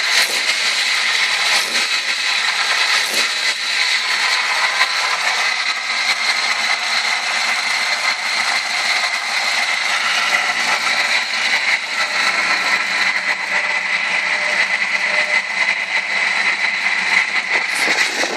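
1998 Ford ZX2's 2.0-litre Zetec four-cylinder engine running, with a steady high-pitched whine over the engine noise; the cause of the whine has not been found.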